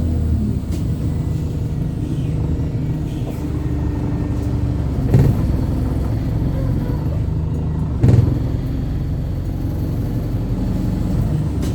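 Wright StreetLite single-deck bus on the move, heard from inside: steady diesel engine and road rumble, with two sharp knocks about five and eight seconds in.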